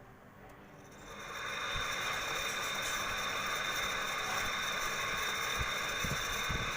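LG window air conditioner starting up about a second in and then running steadily with a high-pitched tone over a dense mechanical noise, with a few low knocks: the abnormal noise of a fault in its fan motor.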